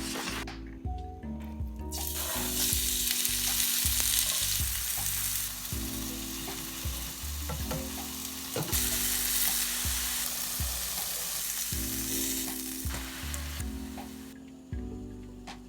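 Food frying in a hot pan, a loud steady sizzle that starts about two seconds in and dies down near the end.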